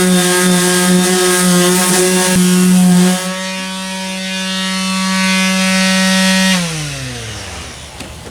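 Power sander running on the car's painted panel, a steady motor whine with a rasping hiss of abrasive on paint, for about three seconds. It is then lifted off and runs free, and about six and a half seconds in it is switched off, its whine falling in pitch as it spins down.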